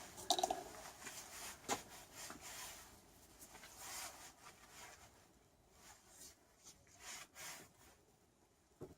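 Faint handling sounds: scattered light clicks and rubbing as small objects are handled, thinning out after about five seconds.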